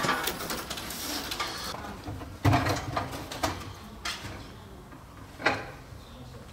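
Handling noise from cleaning a chain-hung wooden swing: scraping on the wood in the first couple of seconds, then scattered knocks, the loudest about two and a half seconds in and another sharp one about five and a half seconds in.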